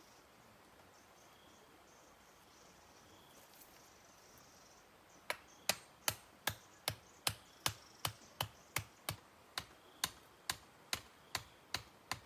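A steady series of about eighteen sharp strikes of a hand tool on bamboo, two to three a second and evenly spaced, starting about five seconds in, each with a short ring. Before them only a faint background hiss.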